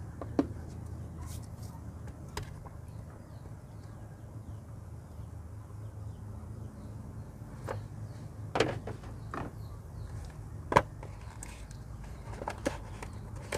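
Scattered clicks and knocks as the LED headlight kit's box and parts are handled, the loudest about three-quarters of the way through, over a steady low hum.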